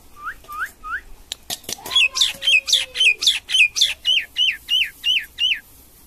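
Common myna calling: three short rising notes, a few sharp clicks, then a fast run of about a dozen repeated sharp notes at about four a second that stops shortly before the end.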